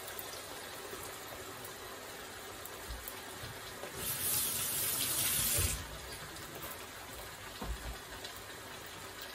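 Diced potatoes frying in plenty of olive oil in a pan, a steady sizzle that swells into a louder hiss for nearly two seconds midway, with a few soft knocks.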